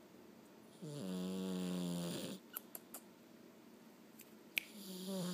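A sleeping cat snoring: one steady, pitched snore about a second in that lasts about a second and a half. A few small sharp clicks follow, then the next snore builds near the end.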